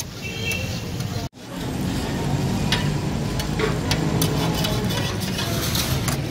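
Chopped liver sizzling on a large flat tawa griddle, with a metal spatula scraping and clacking against the plate as it turns the pieces. The sound cuts out briefly just over a second in, then resumes.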